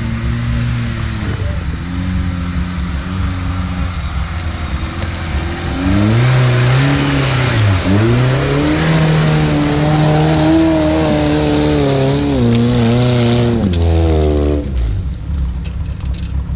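Off-road vehicle engine ticking over, then revving hard from about six seconds in. The revs rise, dip sharply once and climb again, then drop back near the end. A loud hiss of spinning wheels in wet, sticky mud accompanies the high revs.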